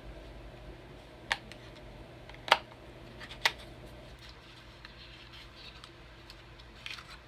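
Small cosmetic packaging being handled, a blush duo compact and its box: three sharp clicks about a second apart, then faint rustling and a few lighter clicks near the end.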